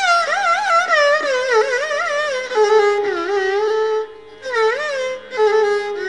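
Carnatic instrumental music in raga Hamsanandi: one melodic instrument plays ornamented phrases with sliding, oscillating notes over a steady drone. It settles into long held notes in the second half, with a brief drop about four seconds in.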